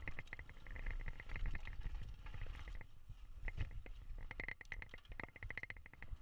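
GT Force X Expert full-suspension mountain bike riding fast down a dirt singletrack: tyres rumbling over the trail with wind buffeting the microphone, sharp clicks and rattles from the bike over bumps, and quick runs of high ticking from the rear hub as the rider coasts.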